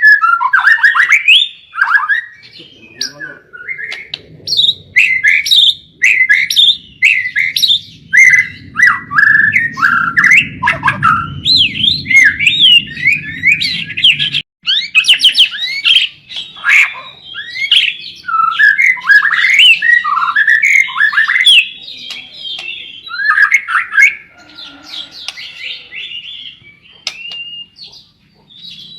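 White-rumped shama (murai batu) singing non-stop: a fast, varied string of loud whistles, chirps and sweeping notes. A faint low hum underneath cuts off abruptly about halfway through.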